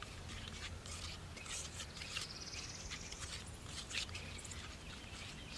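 Faint scraping and tapping of a wooden popsicle stick stirring wet plaster in a metal bowl. About two seconds in, a bird gives a short, high, rapid trill.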